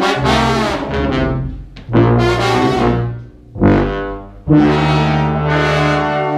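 Live brass and wind band playing loud sustained chords, with trumpets and trombones to the fore. The chords break off briefly and come back in with fresh accents about two, three and a half and four and a half seconds in, and the last one is held.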